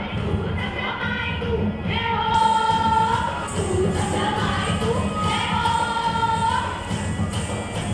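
Sambalpuri folk dance music: a high singing voice holding long notes in repeated phrases over steady, dense drumming.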